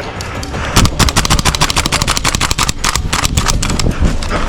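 Airsoft rifle firing a long rapid full-auto burst of sharp snapping shots, starting a little under a second in and tailing off after about three seconds.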